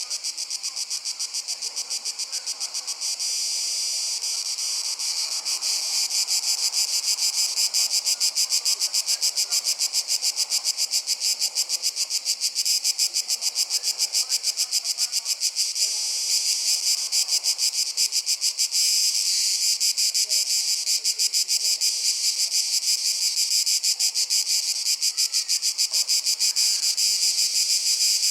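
A chorus of insects such as crickets chirping in rapid, even pulses, high-pitched and continuous, which gets louder about six seconds in.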